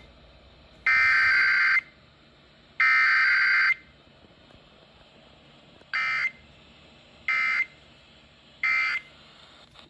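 Emergency Alert System SAME digital data bursts. Two bursts of about a second each, about a second apart, close out the header; then, about six seconds in, three short bursts about 1.4 s apart, the end-of-message code that closes the alert.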